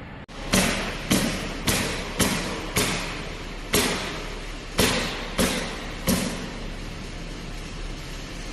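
Hydraulic forging press at work: a series of sudden thuds, each fading off in a hiss. The first five come about half a second apart, four more follow at uneven gaps, and they stop about six seconds in.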